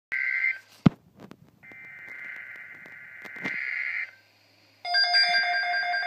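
A Midland NOAA weather radio receiving an Emergency Alert System message: the screeching digital data bursts of the alert header, broken by a sharp click just under a second in. After a short gap, about five seconds in, the radio's pulsing alert tone starts.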